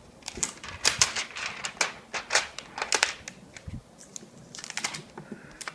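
Plastic wrapping being pulled off a new tablet: a run of irregular crinkles and crackles, with a short lull past the middle.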